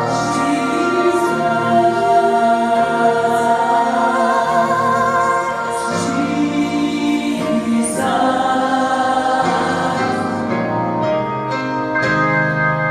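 A choir singing, several voices holding long notes with vibrato and moving together through changing chords.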